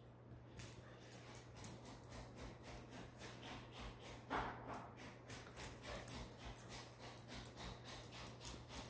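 A Lhasa Apso's claws clicking and skittering on a hardwood floor as it scampers about, an irregular run of light ticks, with a short breathy huff about halfway through.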